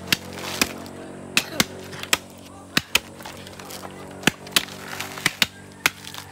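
Coconuts being husked by hand: about a dozen sharp cracks and knocks at irregular intervals as husk and fibre are worked and torn off the nuts.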